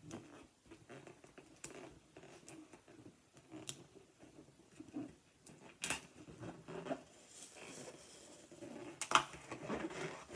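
Latex balloon neck being stretched and knotted by hand: soft rubbery rubbing and handling, with a few sharp clicks of the rubber, the loudest near the end.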